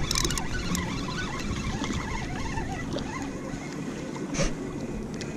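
Water splashing and sloshing against a kayak as a small redfish is pulled up alongside and grabbed by hand, with a few sharp clicks right at the start and a short splash about four seconds in.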